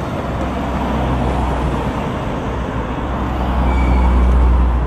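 Low engine rumble of a road vehicle passing close by, growing louder to a peak about four seconds in and then easing off.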